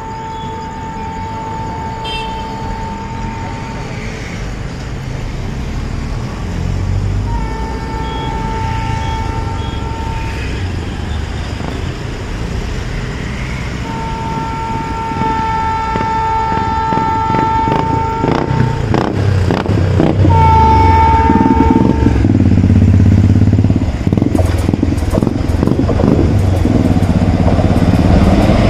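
An Indian Railways WAP4 electric locomotive's air horn sounds four long blasts on one steady pitch as the train approaches the level crossing. The train's rumble grows steadily louder, and near the end a rapid clatter of wheels over the rails sets in as it reaches the camera.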